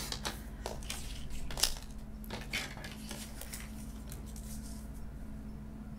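Sliding-blade paper trimmer cutting patterned cardstock: a run of scrapes and clicks as the blade carriage slides along the rail and the paper is shifted, thinning out over the last couple of seconds.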